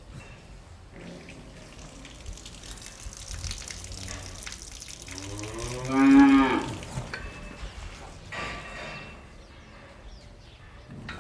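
A cow mooing once, a loud call of about a second and a half about five seconds in, over faint background noise.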